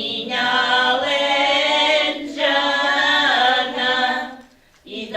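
Voices singing in long held phrases, with pitches sliding between notes and a short break near the end.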